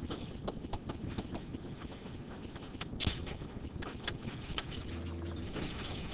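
Classroom room noise: scattered light clicks and knocks, then a steady low hum starts about five seconds in.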